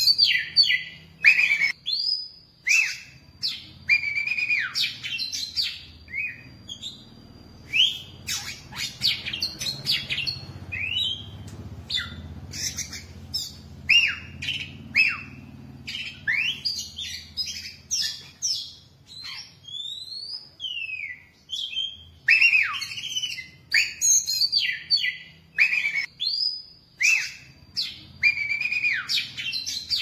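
Oriental magpie-robin singing a long, varied song of loud whistled notes, many sliding down in pitch, mixed with short harsh clicks, delivered in repeated phrases with brief pauses.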